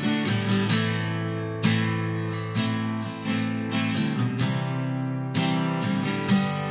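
Background music: acoustic guitar plucking and strumming chords, unhurried, with each chord left to ring.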